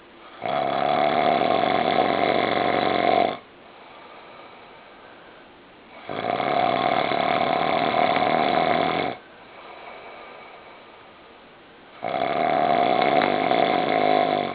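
A man snoring loudly: three long snores of about three seconds each, roughly six seconds apart, with a fainter breath between the second and third.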